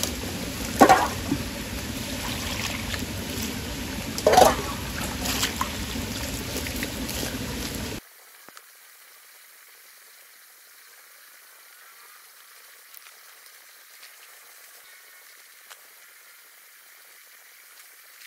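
Forest stream rushing steadily, with two brief louder splashes about one and four seconds in. About eight seconds in it cuts off suddenly to a much fainter steady hiss with a few soft clicks.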